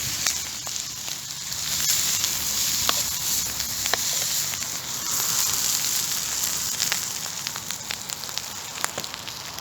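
Food sizzling in a pan over a wood campfire, with scattered small crackles and pops from the fire. The sizzle grows a little louder about two seconds in and eases near the end.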